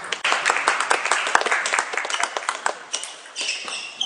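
Spectators clapping for about two and a half seconds after a point in a table tennis match. Near the end, short high squeaks come in as the next rally starts, typical of sports shoes on the hall floor.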